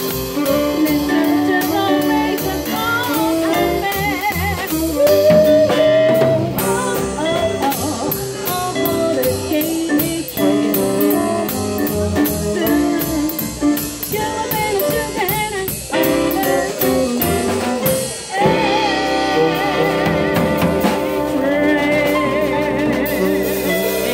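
Small jazz combo playing swing: piano, bass and drum kit with regular cymbal strokes, and a singer's voice holding wavering notes, most clearly near the end.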